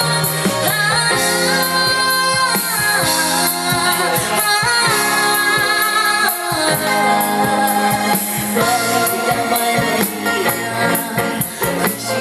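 A female singer performing a Chinese pop song live, backed by a band, with long held notes.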